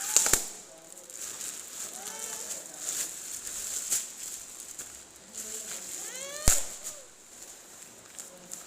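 Packaging being handled during an unboxing, with a few sharp clicks, the loudest about six and a half seconds in, and a couple of short wordless vocal sounds that rise in pitch, around two seconds in and near the six-second mark.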